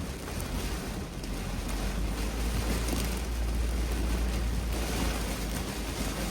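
Steady rain, with a deep low rumble that builds about two seconds in and fades near the end.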